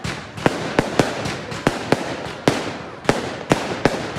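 Fireworks display: a rapid, irregular series of sharp bangs, about three a second, from aerial shells bursting over a continuous din.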